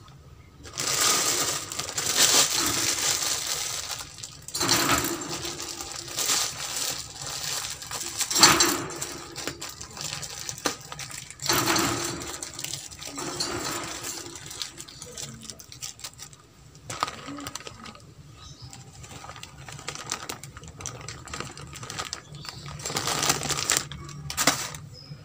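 A metal wire cage rattling and clattering in several bursts as a rabbit moves about inside it, with quieter gaps between.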